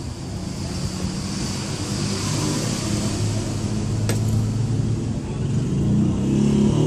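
Motor vehicle engine rumble amid traffic noise, growing louder toward the end, with a few sharp clicks.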